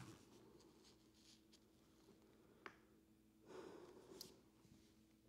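Near silence: room tone with a faint steady hum, one small click about two and a half seconds in, and a soft brief noise a little later.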